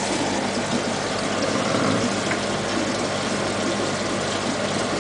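Fish-tank pump running: a steady low hum under a constant rush of moving water.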